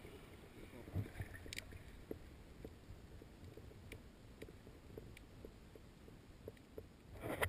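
Faint, muffled underwater sound picked up by a submerged camera: a low rumble with scattered small clicks and knocks, the loudest about a second in.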